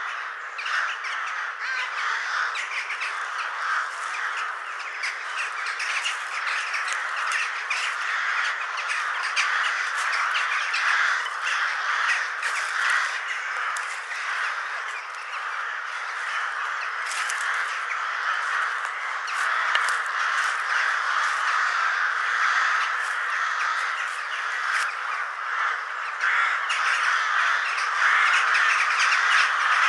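A large flock of corvids cawing and squawking all at once in a dense, unbroken chorus, growing a little louder near the end.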